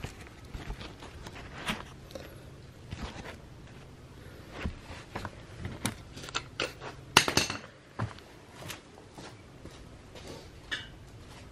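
Scattered clinks, knocks and footsteps of tools being handled on a garage floor, with the loudest clank about seven seconds in.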